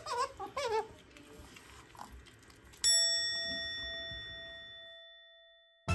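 A single bell-like ding struck about three seconds in, its clear ringing tone fading away over about two and a half seconds.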